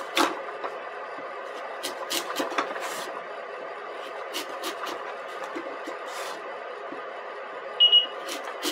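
Chef's knife making hasselback cuts in a raw sweet potato, the blade stopping on wooden spoons laid on a wooden cutting board: a series of irregular short clicks and taps over a steady background hum, with two louder knocks near the end.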